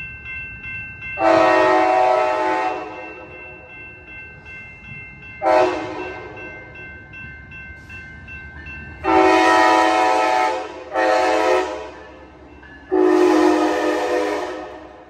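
Siemens SC-44 Charger locomotive's horn sounding five warning blasts, long and short, at grade crossings as the train comes along street-running track. Under the horn are the low rumble of the approaching train and the steady ringing of crossing bells, which fades about two-thirds of the way through.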